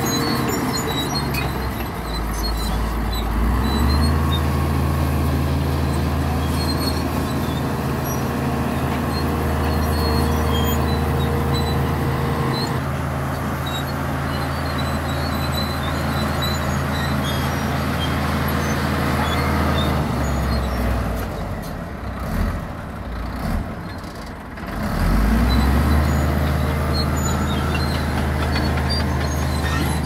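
LiuGong B160C crawler bulldozer's diesel engine running steadily under load as it pushes rock, with scattered clinks and rattles. About twenty seconds in the engine eases off and runs unevenly, then revs back up some five seconds later.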